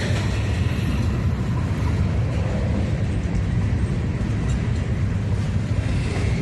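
A slow freight train of empty covered grain hopper cars rolling past, a steady low rumble.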